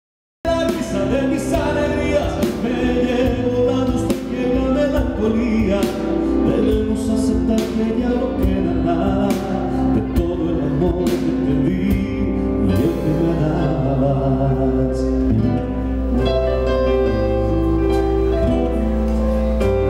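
A man singing a ballad with a live band that includes piano and drums, heard through a venue sound system during a sound check. The music starts abruptly about half a second in.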